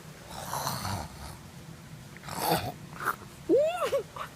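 A person choking on a cough drop: strained breaths, a sharp cough about two and a half seconds in, then high squeaky gasps for air near the end.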